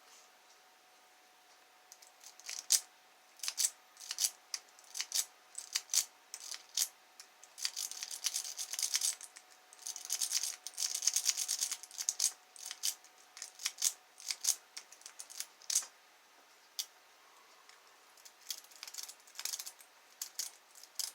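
A rake pick scrubbed in and out of a Kwikset pin-tumbler lock: quick metallic clicking and rattling as the pins are raked. It starts after a couple of quiet seconds, comes in irregular bursts, and is thickest in the middle.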